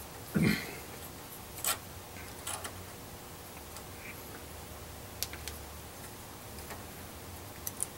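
Scattered light metallic clicks as a 6-32 hand tap in a T-handle wrench is turned in an aluminum part held in a bench vise, with a soft knock about half a second in, over a faint low hum.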